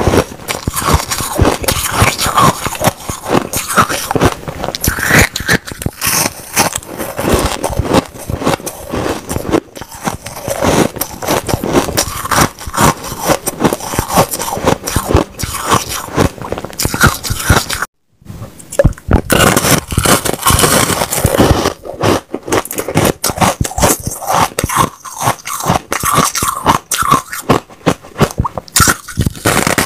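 Close-up crunching and chewing of powdery white ice, a dense run of crisp crackles from bite after bite, broken by a brief gap about two thirds of the way through.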